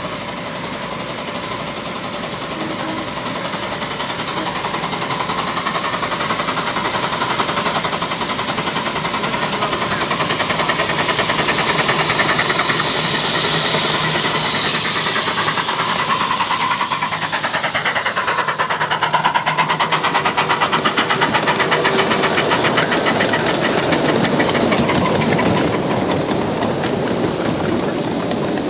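1.5-inch scale live-steam ALCO Northern locomotive working a riding train, its exhaust chuffing in a rapid, even beat with hissing steam, growing louder as it approaches and passes close, loudest about halfway through.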